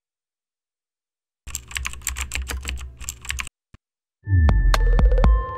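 Keyboard typing sound effect: a quick run of keystroke clicks lasting about two seconds. Near the end comes a deep bass hit with a falling sweep and held ringing tones, a musical sting.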